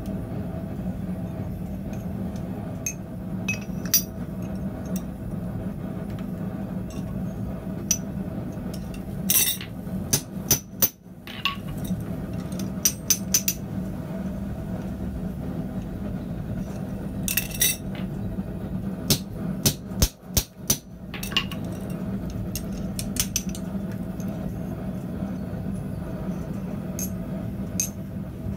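Hand hammer blows on red-hot steel at the anvil: scattered, irregular ringing strikes, several close together near the middle, over a steady low hum.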